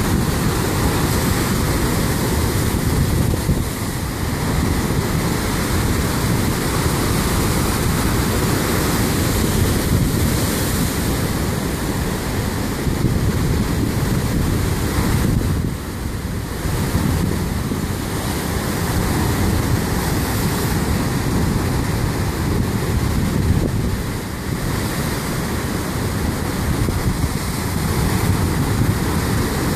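Heavy storm surf breaking over black lava rocks: a loud, continuous rush of churning water that eases briefly a few times between breakers.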